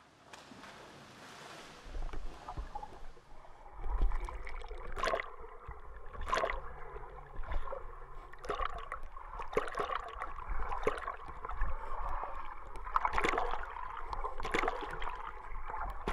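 Water splashing and sloshing in irregular strokes, roughly once a second, over a low rumble. It begins faint and becomes louder a few seconds in.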